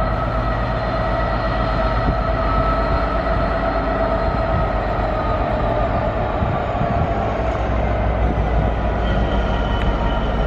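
Class 66 diesel-electric locomotive's two-stroke V12 engine running under load as it hauls a container freight train at low speed: a steady whine over a low rumble, with a higher whine joining near the end.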